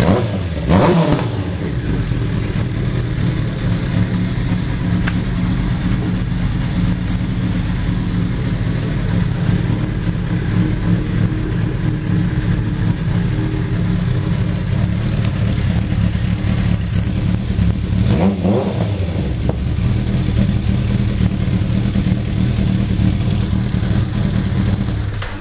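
Kawasaki Zephyr 1100's air-cooled inline-four idling steadily through a Misty hand-bent aftermarket exhaust with an L-size silencer, blipped up and back down about a second in and again around eighteen seconds in.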